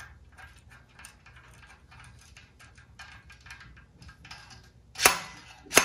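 Faint metallic clicks and scrapes as a Norton slide-hammer is threaded into the ignition's auto-advance unit. About five seconds in come two sharp, loud metallic clacks, the slide-hammer's weight striking its stop to pull the advance unit off the camshaft taper.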